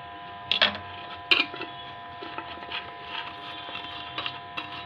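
A few light knocks and clatters as chopped onion, capsicum and tomato are tipped in to be mixed. A steady faint hum runs underneath.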